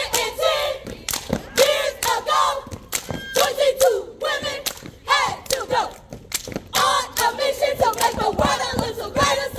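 A crowd of high-pitched voices shouting and cheering together, with many sharp claps and thumps throughout.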